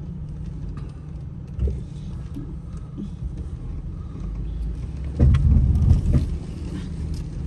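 Jeep running slowly over rough off-road trail, with a knock about two seconds in and a loud scraping clunk about five to six seconds in: the tow hitch dragging on the rock.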